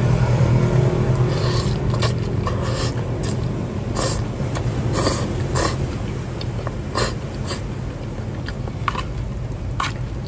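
Close-miked eating sounds of spaghetti being slurped and chewed: a string of short, sharp mouth noises roughly a second apart, over a steady low hum.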